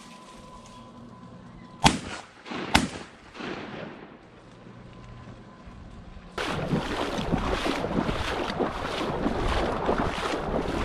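Two shotgun shots a little under a second apart, each with a brief echo. From about six seconds in, a loud, rough crackling noise sets in and carries on.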